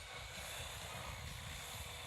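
Align T-Rex 550X electric RC helicopter running, a faint steady whine over wind buffeting the microphone.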